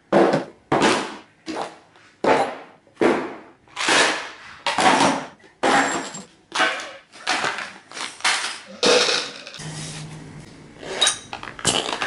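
Boxed radio gear and supplies dropped one after another onto a steel-topped workbench: more than a dozen sharp impacts at a fairly even pace, each dying away quickly.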